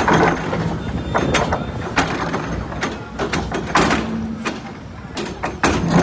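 Hydraulic excavator digging: irregular clanks and knocks from the steel bucket working in soil and rubble, over the machine's engine, whose steady low hum shows briefly near the start and again about four seconds in.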